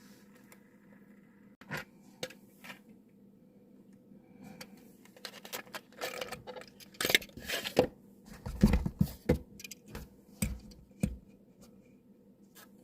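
A die-cast model car's cardboard box and plastic packaging being opened and handled: scattered scrapes, rustles and clicks, busiest and loudest in the middle stretch, with a few soft knocks.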